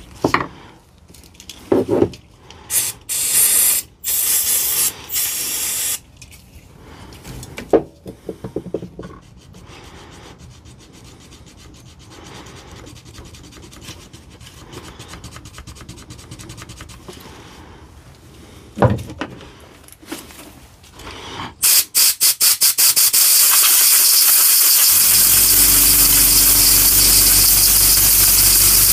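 Compressed-air blow gun blasting the trigger switch of a DeWalt DCF899 impact wrench clean: a loud steady hiss begins about three-quarters of the way in, and a low hum joins under it. Earlier come quieter scraping and rubbing at the switch, with a few short hisses.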